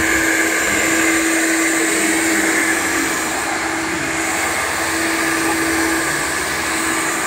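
i-mop floor scrubber running steadily as it is pushed over wet porcelain tiles: a constant motor hum with a held tone and a hiss, from its rotating brush heads and suction.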